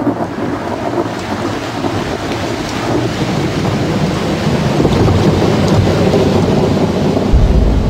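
Continuous deep roar and rumble of an erupting volcano, like thunder, slowly growing louder. A heavier low rumble sets in near the end.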